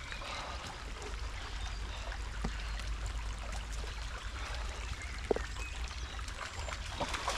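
Steady hiss of rain falling outdoors, with a few light taps of single drops.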